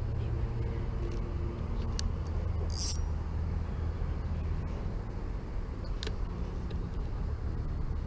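A steady low engine rumble, like a motor vehicle running nearby, its humming tones fading after a few seconds. A few sharp clicks and a brief hiss about three seconds in.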